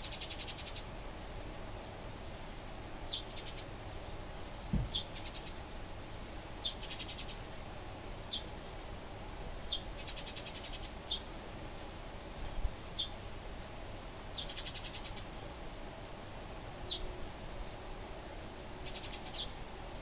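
Eurasian tree sparrows calling during a fight: short high chirps every second or two, broken by several brief harsh chattering rattles. A single low thump comes about five seconds in.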